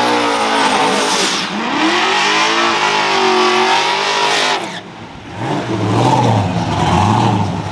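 Chevrolet Camaro SS V8 revving hard through a burnout, with the rear tyres spinning and screeching on the pavement. A little under five seconds in the revs drop off, and the engine settles to a low, uneven burble that swells in a regular rhythm as the car rolls forward.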